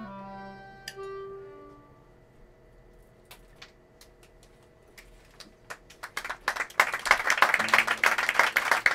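Live cello and accordion accompaniment. Held notes fade out over the first two seconds, a few scattered clicks follow, and about six seconds in a loud, rapid clatter of percussive taps starts.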